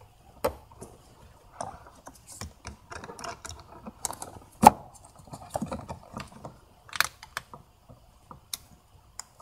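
Hose clamp pliers and a hose clamp clicking and rattling against a plastic intake duct as the clamp is fitted, with the loudest sharp snap a little under five seconds in.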